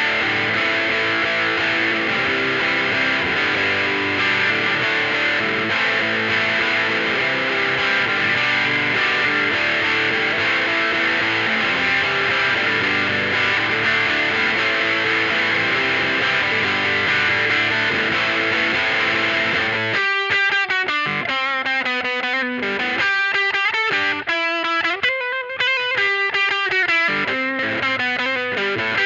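Electric guitar played through distortion and effects pedals: a thick wall of distorted chords, then about two-thirds of the way through it changes to a picked single-note melody with separate ringing notes.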